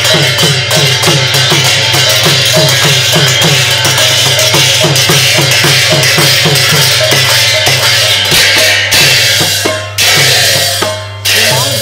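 Pala accompaniment of large brass hand cymbals clashed continuously over a barrel drum beaten in a fast, even rhythm of about three strokes a second, some strokes bending in pitch. The sound drops briefly twice near the end, with a steady low hum beneath.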